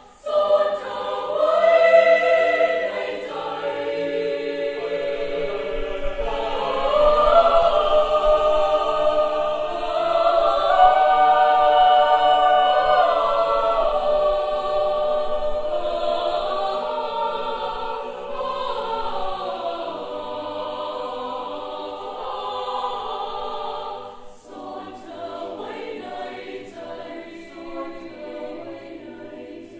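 A choir singing a Thai song in harmony, several voice parts holding and moving together, softer for the last few seconds.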